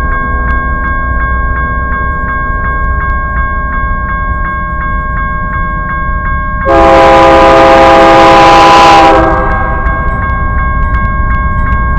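Freight locomotive air horn sounding one long chord about seven seconds in, lasting about two and a half seconds, the loudest sound here. Under it, a crossing bell rings steadily at about three strokes a second, with the low rumble of the approaching train.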